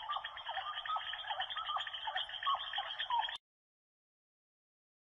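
A dense chorus of short, hooked chirping calls over rapid clicking, thin in tone, cutting off abruptly about three and a half seconds in to dead silence.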